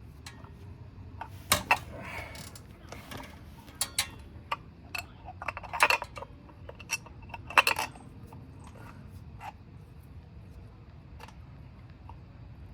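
Scattered metallic clinks and clatter of tools and small metal parts being handled. The loudest knocks come about one and a half, six and seven and a half seconds in, then only a few faint ticks.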